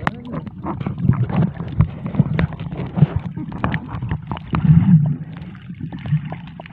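Muffled water sloshing and rumbling heard through an underwater camera's housing, with irregular knocks and clicks as it moves through the water.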